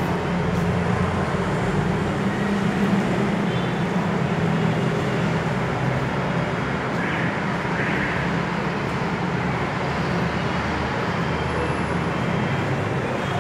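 Steady low rumble of vehicle noise, with two brief faint higher sounds around the middle.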